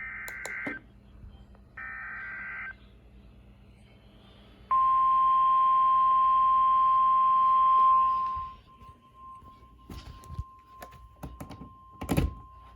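Emergency Alert System SAME header: two short buzzy data-burst screeches, then a loud steady NOAA Weather Radio alert tone lasting about three seconds before it fades to a faint lingering hum of the same pitch. Scattered clicks follow, with a sharper knock near the end.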